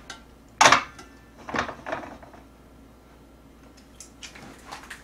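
Tableware being handled: a sharp clatter about half a second in, a weaker one about a second later, and light clicks near the end.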